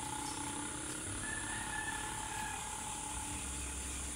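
Steady outdoor ambience with a continuous high insect drone, with a faint extra tone for a second or so in the middle.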